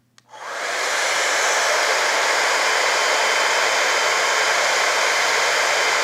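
T3 Micro AireBrush Duo hair dryer brush switched on with a click and blowing steadily in cool-shot mode, with no heat, after its airflow builds up over about the first second. A faint high motor whine runs under the rushing air.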